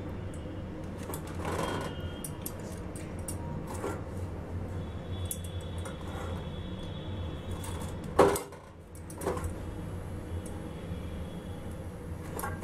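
Gas stove burner flame running with a steady low rumble while flat metal tongs turn a millet roti over it, giving light metallic clicks against the burner grate; one louder clank about eight seconds in.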